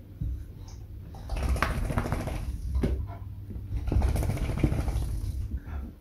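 Beagle snuffling and snorting with its nose down at the floor, a rough, irregular run of sniffs and snorts that starts about a second in.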